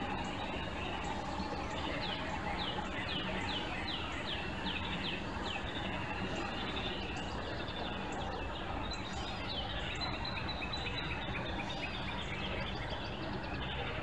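A songbird singing a quick run of about ten down-slurred whistled notes. About ten seconds in it gives a long, steady high note with a faster trill beneath. A steady outdoor background hiss runs underneath.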